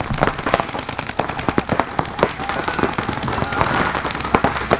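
Paintball markers firing rapid, irregular strings of sharp pops, several guns overlapping, during an Xball point.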